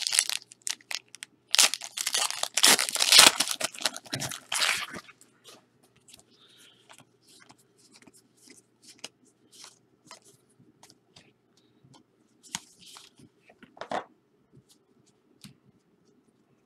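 A 2016 Panini Classics Football trading-card pack being torn open, a loud crinkly tearing rip from about one and a half to five seconds in. It is followed by light, scattered clicks and snaps.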